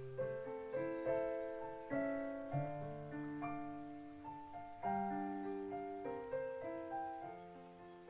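Solo piano playing a slow, gentle piece of single notes and chords, struck every half second to a second, each ringing and fading, growing softer near the end.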